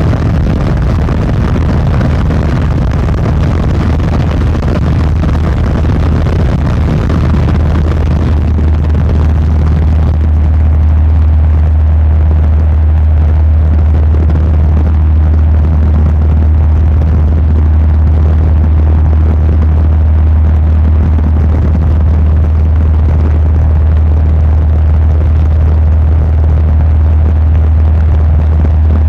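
Light aircraft's engine and propeller droning steadily, heard from inside the cabin. About ten seconds in, the higher rushing sound falls away and a steadier low drone is left.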